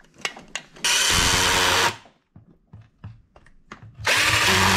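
Cordless drill driving in the case-plate screws on a two-stroke engine crankcase: two steady runs of about a second each, one about a second in and one near the end, with light clicks of the bit and screws between.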